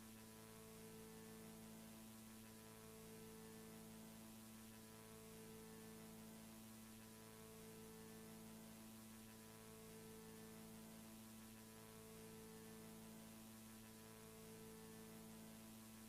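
Near silence holding only a faint, steady low electronic hum, with one tone that drops out briefly about every two seconds.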